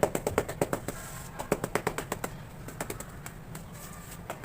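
Rapid tapping on hard, dried cement cakes: quick runs of sharp clicks, about three bursts in the first three seconds, then a few scattered taps near the end.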